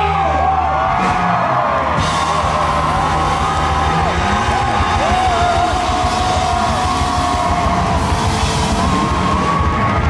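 Live rock band playing loudly through a festival PA: electric guitar with drums and cymbals, the guitar line gliding up and down in pitch.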